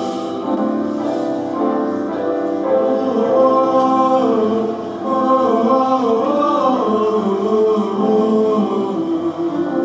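Men's chorus singing a slow song in harmony, several voices holding long notes and moving together in pitch.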